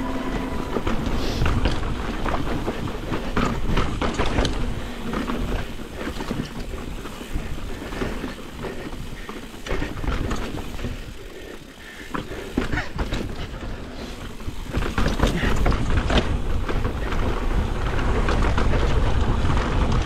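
Mountain bike being ridden over rough rock: a steady rumbling noise with frequent knocks and rattles. It quietens for a moment about halfway through, then picks up and is loudest near the end.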